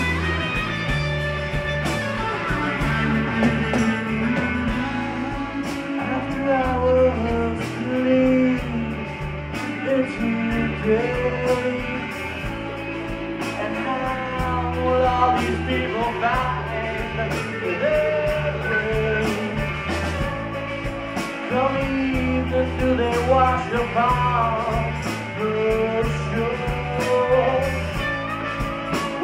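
Live rock band playing with a steady beat: electric guitars, drums and a tambourine, with singing.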